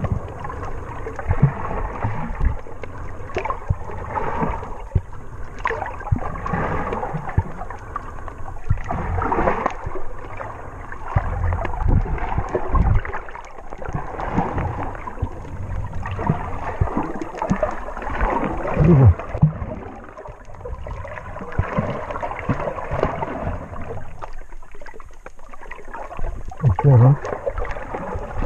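Sea water sloshing and bubbling around a submerged microphone as a swimmer moves underwater, heard muffled, in irregular surges with a few low gurgles.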